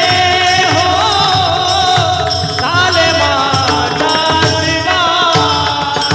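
Kirtan music: a sustained melody over drumming and jingling percussion in a steady rhythm.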